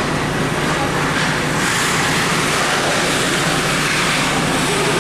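Steady din of an ice hockey arena during a game, with a brief hiss swelling about two seconds in.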